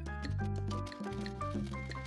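Background music: a bouncy tune of short, evenly paced notes over a bass line, with light regular ticks.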